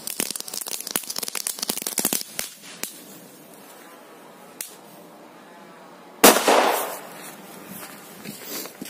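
A Korsar-4 firecracker goes off with a single sharp bang about six seconds in, once its fuse has burned down.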